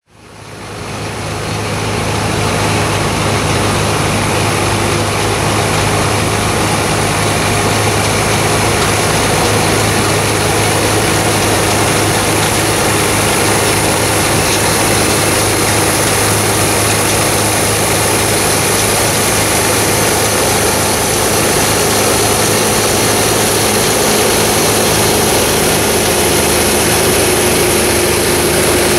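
Old Gleaner combine harvester's engine and threshing machinery running steadily as it cuts oats, a constant hum and rush that fades in over the first couple of seconds.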